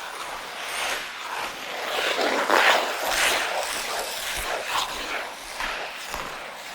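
Ice skate blades scraping and gliding across ice in a run of strokes, the loudest about two and a half seconds in.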